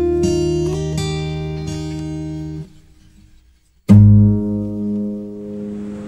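Acoustic guitar music: a run of plucked notes, a pause of about a second, then one loud closing chord that rings out and fades.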